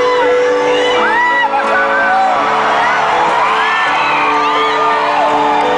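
Live concert crowd screaming and whooping over held keyboard chords from the stage, which shift to a new chord about a second in.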